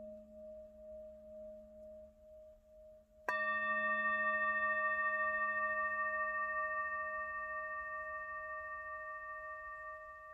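A singing bowl rings out with a slow pulsing waver, then is struck again about three seconds in and rings on, fading slowly.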